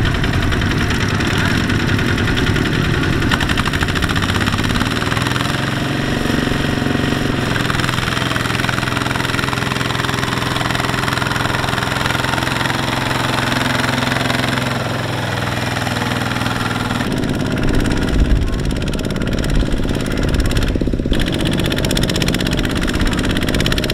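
Single-cylinder diesel engine of a Kubota two-wheel walking tractor, running steadily under load with a knocking chug as it hauls a loaded trailer through mud. The engine note changes about two thirds of the way through, with heavier low thumps after.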